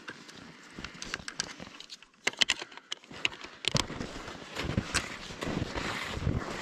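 Walking on hunting skis through snow: scattered crunches and clicks, turning into a denser, louder run of steps from about four seconds in.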